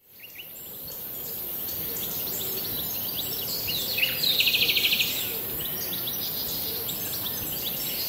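Small wild birds chirping with short high calls, one giving a fast trill of about fifteen notes around the middle, over a steady high hiss; the sound fades in at the start.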